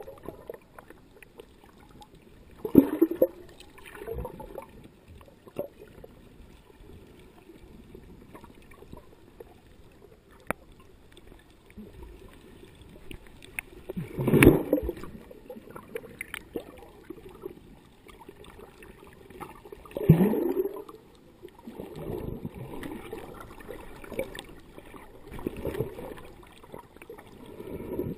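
Water sloshing and gurgling heard through an underwater camera held just below the sea surface. Several louder, muffled rushes of splashing and bubbling come through, the biggest about 14 and 20 seconds in.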